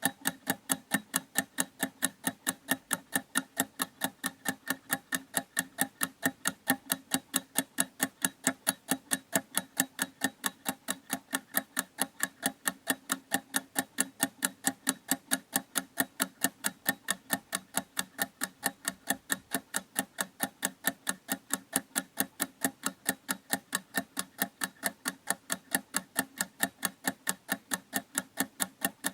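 Clock ticking in a steady, even rhythm, every tick the same, with no pause or change.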